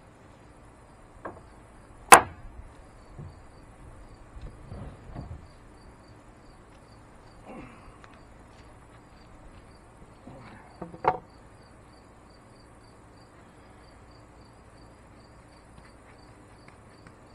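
Insects chirping steadily, about two high chirps a second. Over them come a few sharp knocks and clatters of a board and tools being handled; the loudest knock is about two seconds in and another about eleven seconds in.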